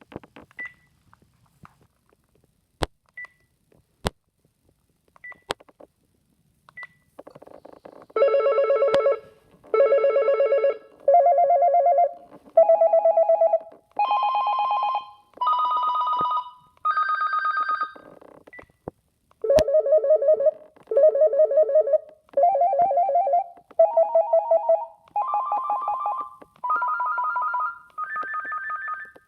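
Panasonic KX-TGM430B cordless phone playing an electronic ringtone: a run of warbling, roughly one-second tones that climb step by step in pitch, then the same rising run again. Before it, over the first several seconds, there are a few short high beeps and sharp clicks.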